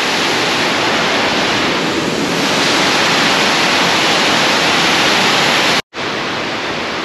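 Waterfall pouring over rocks: a steady, loud rush of water. It breaks off for a moment about six seconds in and comes back a little quieter.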